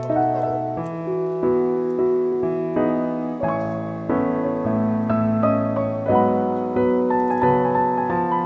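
Background piano music: a gentle melody over held chords, with new notes struck about twice a second.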